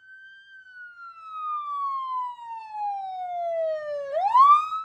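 Fire truck siren wailing: one long tone falling slowly in pitch, then rising quickly again about four seconds in.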